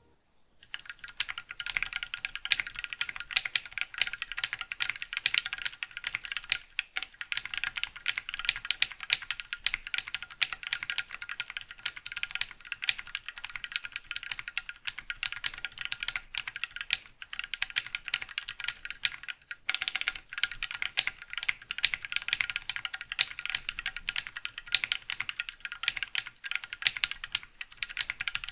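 Typing on a mechanical keyboard fitted with lubed KK Lightwave v2 linear switches, in an aluminium top-mount board with an FR4 plate, foam between plate and PCB, and PBT keycaps. It is a fast, continuous run of keystrokes that sound extremely muted, with a brief pause about two-thirds of the way through.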